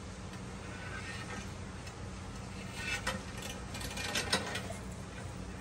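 Monitor lizard biting and mouthing a raw steak on a stone slab: a few short wet clicks about three seconds in and again around four seconds in, over a steady low hum.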